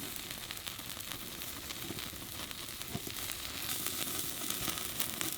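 Pork belly sizzling on a wire grill rack over a burning straw fire: a steady hiss dotted with many small crackles.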